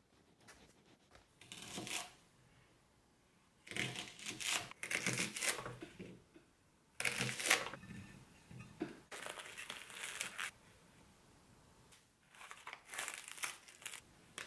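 Plastic packaging crinkling and rustling in several separate bursts; near the end it is cling film crinkling as it is pulled back from a plastic tray of raw prawns.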